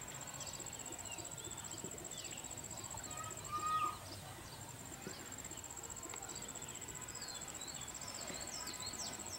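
Countryside ambience: a steady, high, pulsing insect trill with many short bird chirps over it, and one brief louder call about three and a half seconds in. The trill stops shortly before the end.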